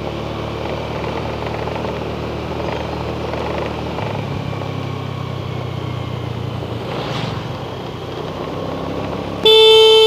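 Steady engine and road noise from a moving vehicle. Near the end a vehicle horn honks loudly in one long toot.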